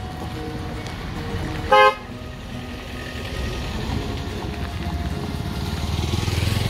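A vehicle horn gives one short toot about two seconds in. After it, engine noise grows steadily louder as a motorcycle approaches.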